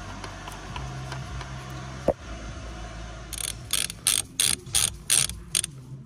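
Socket ratchet wrench tightening the steering wheel's centre nut: about eight short ratcheting rasps, roughly three a second, in the second half. A single sharp click comes about two seconds in.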